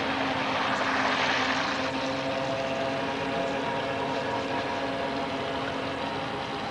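Radio-controlled model PT boat's electric motors and propellers whining steadily, with a rushing noise that swells briefly about a second in; the sound slowly fades.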